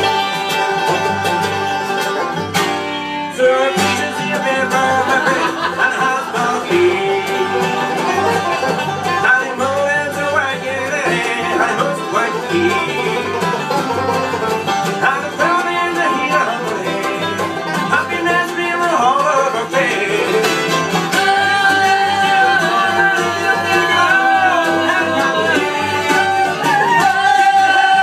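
A live bluegrass band playing, with fiddle, mandolin, banjo, acoustic guitar and upright bass, and voices singing along.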